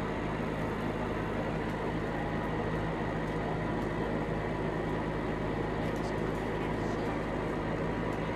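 A steady low hum with a constant rushing noise over it, like a running fan, unchanging throughout, with a few faint light ticks about six seconds in.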